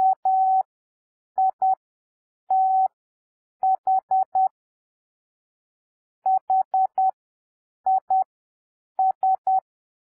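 Morse code sent as a steady electronic tone of about 750 Hz, keyed in short dits and long dahs: it finishes the word "with" (two dits, a dah, four dits) and then sends "his" (four dits, two dits, three dits). The characters are keyed at 10 words per minute with extra-long gaps between letters, giving an overall speed of 7 words per minute.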